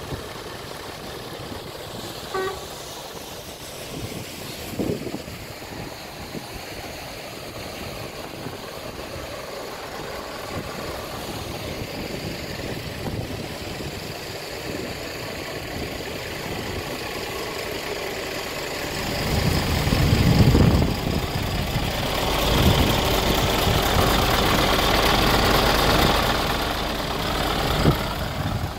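Heavy diesel truck engine, a Scania R450, idling steadily. A short pitched tone sounds once about two seconds in, and the noise swells louder with a deeper rumble for several seconds near the end.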